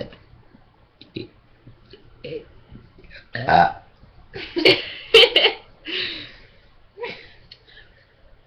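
People burping loudly in a burp contest, several burps one after another, the biggest ones in the middle.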